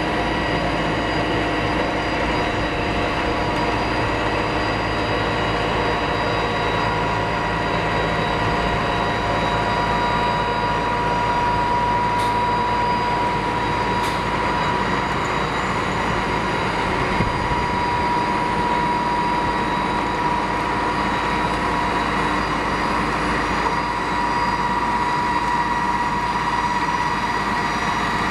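Heavy snow-removal machinery, a large snowblower working with a dump truck, running steadily: a continuous engine drone with a steady high whine over it.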